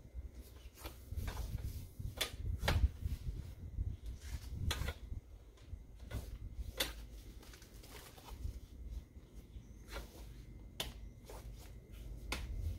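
Scattered clicks and knocks as a seat is handled and fitted onto the frame of a Wonderfold W4 Elite stroller wagon, over a low rumble.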